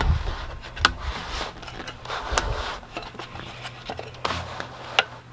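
Scattered plastic clicks and scraping as a portable air conditioner's flexible exhaust hose is twisted onto its reverse-threaded window adapter plate, over a low steady hum.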